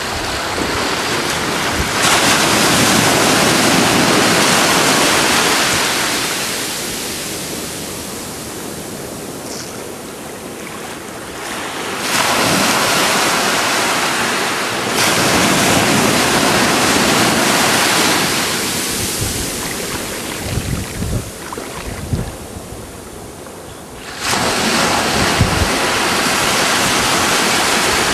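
Ocean surf: waves breaking and washing in, rising and falling in several loud surges. Wind buffets the microphone with low thumps in the second half.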